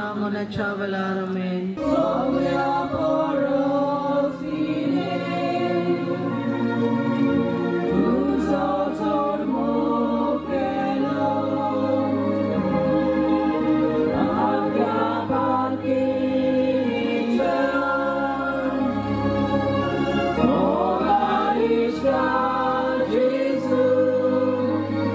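A choir singing a slow hymn over held organ chords.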